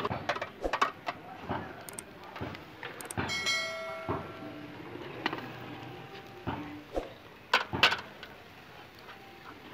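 Metal kebab skewers clinking and clattering against a charcoal grill's frame as they are turned by hand, in quick irregular clicks. A short ringing tone sounds about three seconds in.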